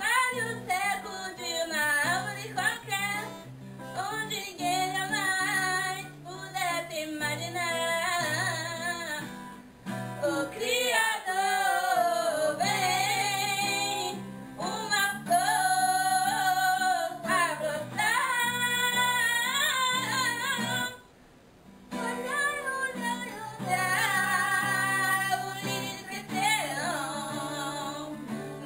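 Music: a woman singing a song over guitar accompaniment, with a short break about three-quarters of the way through.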